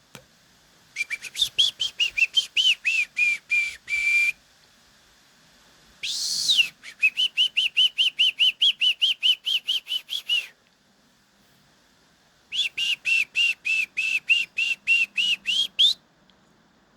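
Three bouts of rapid, repeated high whistled calls, about five or six notes a second. The middle bout opens with one longer note that rises and then falls.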